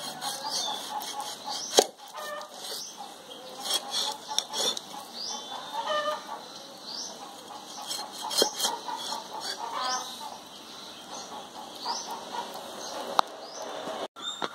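Chickens clucking, with short high rising chirps repeated throughout. A few sharp knocks stand out above them, the loudest about two seconds in and near the end.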